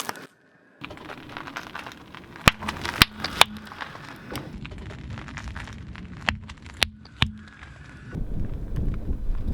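Crunchy objects under a car tyre crackling and cracking, with about six sharp snaps scattered through it. A low rumble builds near the end.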